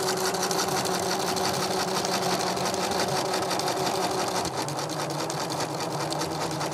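Electric sewing machine running steadily while stitching a decorative leaf-vine stitch, its needle going up and down in a fast, even ticking rattle.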